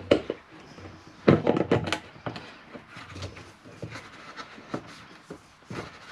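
Knocks and clatter of a bottle being handled and put back together, with a loud burst of several knocks about a second and a half in, then lighter clicks.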